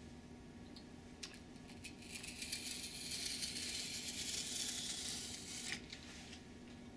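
Carpet knife blade drawn along a straight edge, slicing through a paper-covered foam wing: a steady scratchy cutting sound from about two seconds in until nearly six seconds, with a couple of light ticks.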